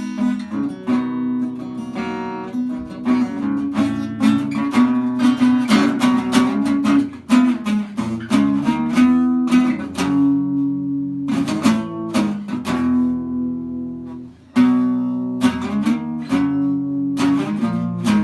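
Acoustic guitar music: a run of plucked notes and strummed chords, with a brief pause about three-quarters of the way through before it picks up again.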